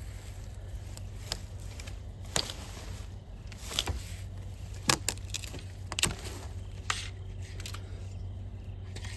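Dry wood cracking and clattering: several irregular sharp snaps and knocks, the loudest in the middle, as firewood is broken and handled.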